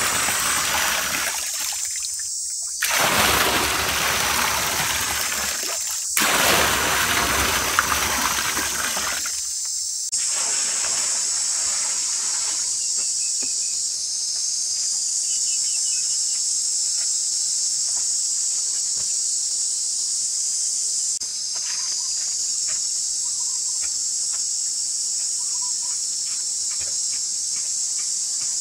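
Water pouring in several streams and splashing into a pool, heard in edited stretches that stop and start abruptly for about the first ten seconds. After that a steady high insect drone carries on alone, with a few faint knocks.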